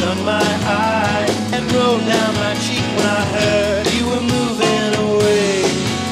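A rock song with singing, played from a vinyl record on a Numark PT-01 battery-powered portable turntable.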